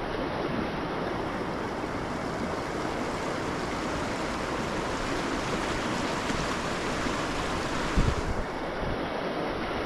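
Steady rushing of river water, with a brief low thump about eight seconds in.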